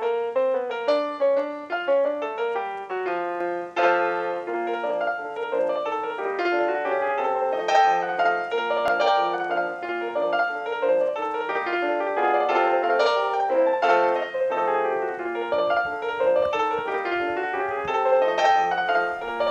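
Background piano music: a continuous flow of quick, struck notes.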